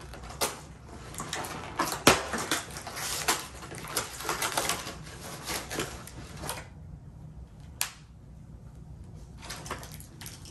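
Cardboard advent calendar doors being opened and the packaged socks inside pulled out: a dense run of sharp paper-and-plastic crackles and clicks that thins out for a few seconds about two-thirds of the way through, then picks up again near the end.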